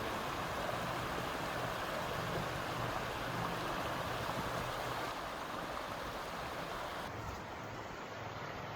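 Small stream babbling, a steady rush of water running over rocks.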